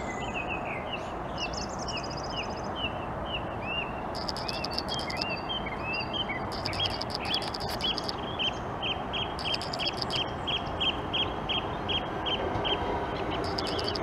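Small birds chirping, with a run of short repeated calls at about two to three a second and bursts of rapid high trills, over a steady background hiss.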